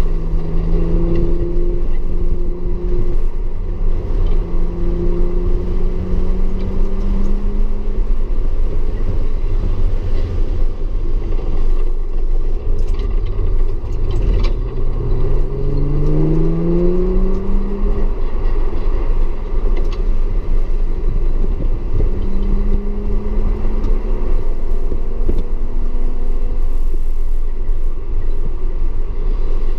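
Audi S4 engine under load on a racetrack, its pitch climbing as it accelerates: slowly at first, steeply in the middle, and again near the end. A constant heavy low rumble runs underneath.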